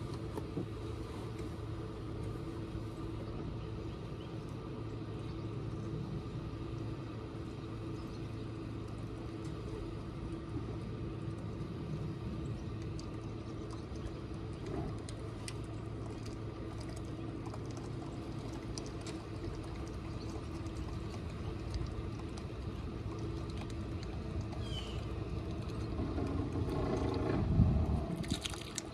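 A small boat's motor running steadily at low, no-wake speed, an even hum. It grows louder for a couple of seconds near the end, then drops back.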